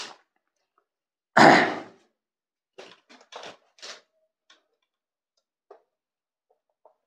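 A loud thump about a second and a half in, then a few short rubbing strokes of a cloth wiping marker off a whiteboard, followed by faint scattered ticks.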